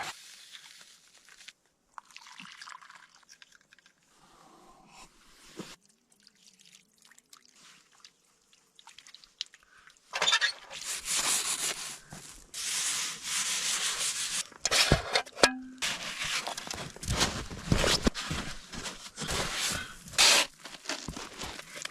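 Faint, scattered soft noises, then from about halfway through a run of loud, rough rubbing and scraping strokes, repeated irregularly.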